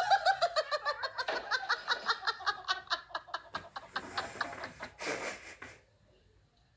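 A person laughing hard: a rapid run of high-pitched 'ha' pulses that slide down in pitch and tail off, followed by a short breathy, hissing burst about five seconds in.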